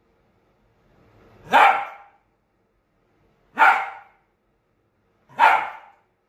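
Lhasa Apso barking three times, single barks about two seconds apart. It is demand barking: the dog is asking to play.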